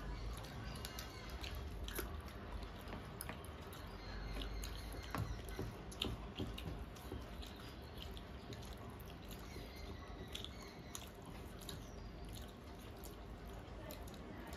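Quiet eating by hand: chewing, and fingers mixing rice and mutton curry on metal plates, giving scattered small clicks and wet smacks over a low steady hum.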